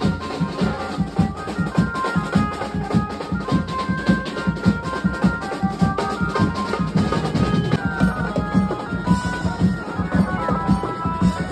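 Loud dance music with a busy, driving drumbeat under a melody of held notes.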